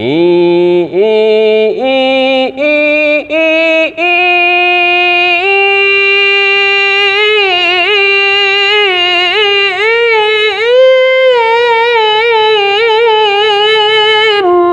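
A man chanting Quranic recitation (tilawah) in head voice, high in his range. It starts with short notes that step upward, then moves into long held notes with wavering ornamental turns (cengkok), and stops abruptly near the end.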